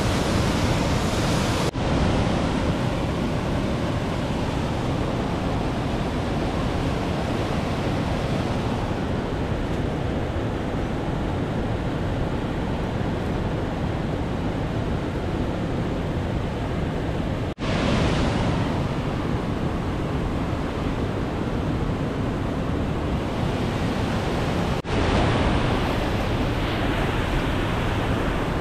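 Steady rush of a mountain stream and waterfall, with three brief gaps where the sound drops out.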